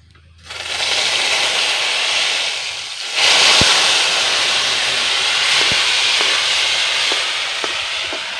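Cumin and turmeric paste mixed with water poured into hot oil in a steel wok: a sudden, loud sizzling hiss with steam, starting about half a second in. A second pour from a ladle about three seconds in makes the sizzle louder, with a few sharp ticks over it.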